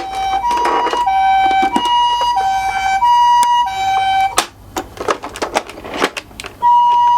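Toy ambulance's electronic two-tone siren, a high and a low tone alternating in Japanese ambulance style, each held a little over half a second. The siren stops about four seconds in, leaving a couple of seconds of clicking and clattering, and starts again near the end.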